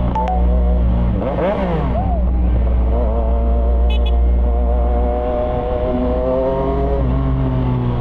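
CFMOTO 675SR-R's 675 cc inline-three engine under way, its note rising and falling with the throttle.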